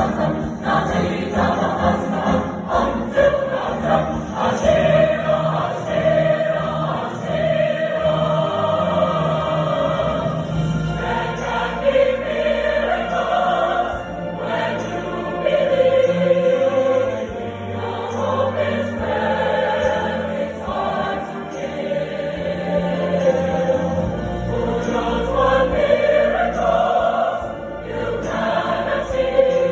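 Choir singing, with a sung melody rising and falling over steady low accompaniment.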